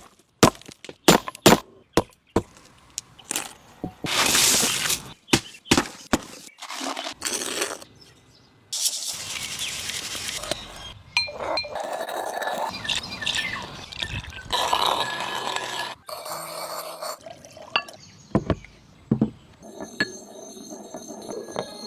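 Hand craftwork on bamboo and paper: a quick run of sharp clicks and knocks, a loud scraping burst about four seconds in, then a long stretch of scraping and rustling, with more knocks near the end.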